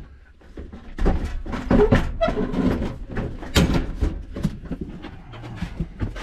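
Irregular knocks and clunks of tools being handled and moved about in a van's load area.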